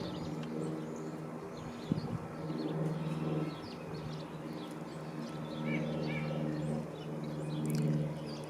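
Small birds chirping and tweeting over a steady low hum, with a single sharp click about two seconds in.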